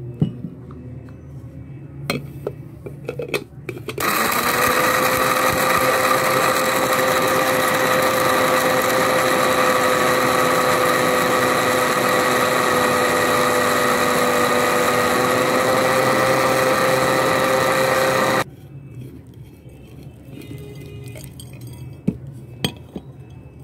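Small electric grinder motor running for about fourteen seconds, grinding cashews into powder: it starts about four seconds in, rises briefly in pitch as it spins up, then holds a steady hum until it cuts off suddenly. A few light knocks come before it, and faint clicks and taps after, as the jar is handled and the powder is tipped out.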